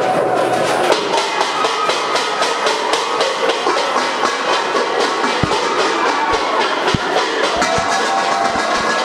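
A crowd banging and rattling objects together in a fast, continuous clatter, New Year noise-making, with voices over it.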